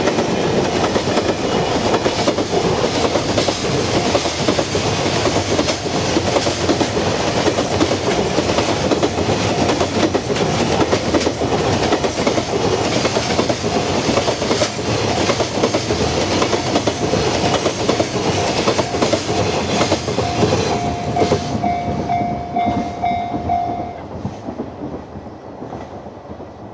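Freight train hauled by an EF64 electric locomotive rolling past, its wagons rumbling and clattering over the rail joints. Near the end the clatter fades away, and a steady high tone stands out briefly.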